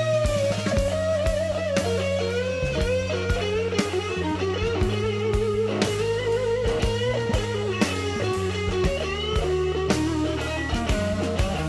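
Background rock music: an electric guitar lead with bent notes over a bass line and a steady drum beat.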